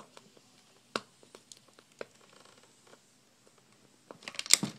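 Fingers picking at and peeling adhesive tape off a laptop LCD panel's ribbon-cable connector: a few light clicks and taps, then a short crackly peeling rustle near the end.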